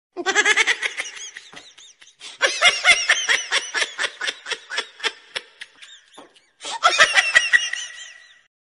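A person laughing hard in three bouts of rapid, high-pitched 'ha-ha' pulses, about four a second in the long middle bout.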